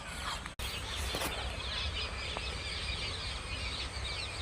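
Many small birds chirping and twittering together in a dense, continuous chorus over a low, steady rumble, with a brief dropout about half a second in.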